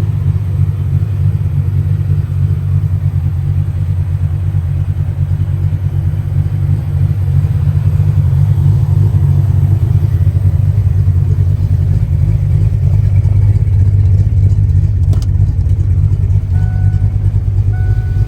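Fox-body Ford Mustang engine running steadily with a low, even drone, a little louder from about eight seconds in. A faint, short beep starts repeating near the end.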